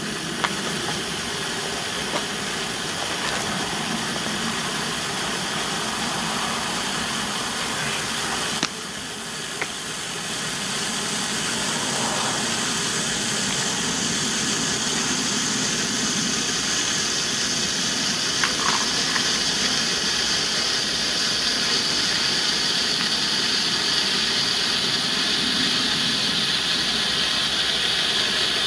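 A 9 mm green mini Bengal flare burning with a steady hiss that grows slightly louder as it goes, with a couple of small clicks in the first seconds.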